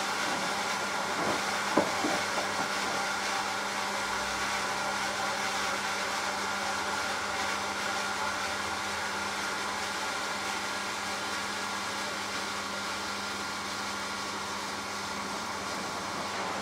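Hoover AXI washing machine running a delicate 40 °C wash: a steady noise with a low hum, and a short knock about two seconds in.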